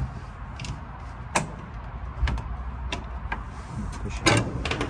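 Latch and hinge hardware of a VW Bay Window bus Safari pop-out windshield being worked by hand: a few separate clicks and knocks, then a quick cluster of louder knocks near the end as the windshield frame is pushed open.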